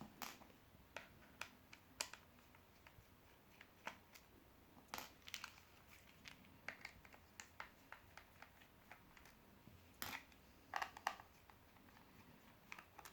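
Quiet, irregular small clicks and scrapes of a T5 Torx screwdriver backing the tiny screws out of the plastic back case of a Garmin Nuvi sat-nav.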